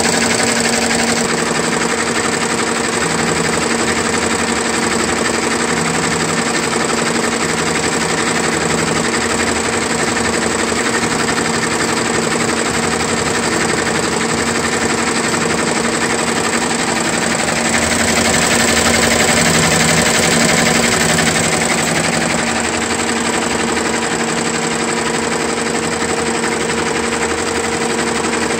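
Ricoma RCM1232C two-head commercial embroidery machine stitching: a steady, rapid needle clatter over a constant mechanical hum. It grows a little louder for a few seconds about two-thirds of the way through, then settles back.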